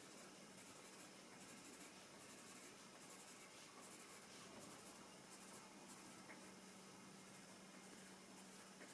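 Faint scratching of a coloured pencil on paper in short repeated strokes as scales are sketched, over a faint steady hum.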